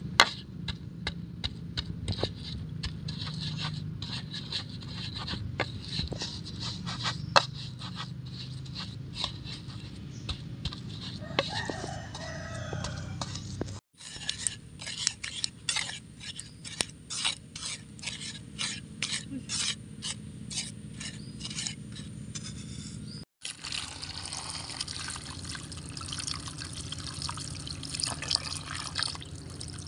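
A pestle grinding and pounding rujak sauce in a clay mortar (cobek), a string of knocks and scrapes, coming at about three strokes a second once the sauce is runny. In the last few seconds, tap water runs and splashes into a plastic basin as nam-nam fruits are rubbed clean under it.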